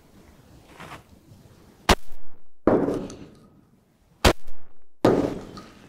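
Two shots from a Benelli Comfort shotgun about two and a half seconds apart, fired down an indoor range. Each is a sharp crack followed by a loud echoing tail.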